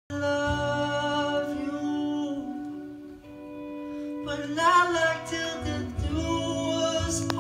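Live song: a man singing with acoustic and electric guitar accompaniment, heard from the audience in a reverberant hall.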